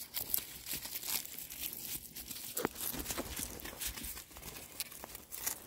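Goats biting and tearing at dried sunflower heads: dry, irregular crunching and crackling of brittle plant matter.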